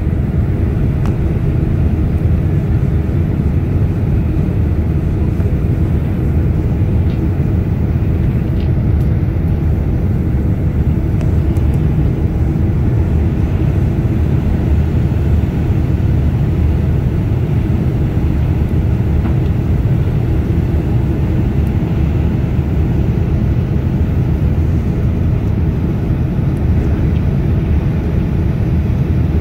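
Jet airliner cabin noise on final approach, heard from a window seat over the wing: a steady, dense low rumble of engines and rushing air that holds an even level throughout.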